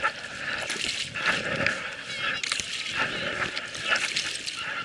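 A group of people's voices, calling out and talking over one another, with scattered short sharp noises in among them.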